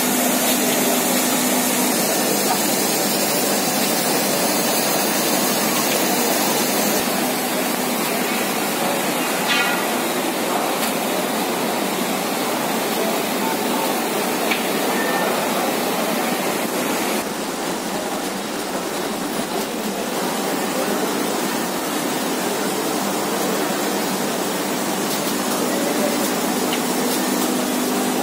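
Pulse-processing machinery running, an X-ray sorting line handling whole masoor dal: a steady, loud rushing hiss, with a low hum at the start and again near the end.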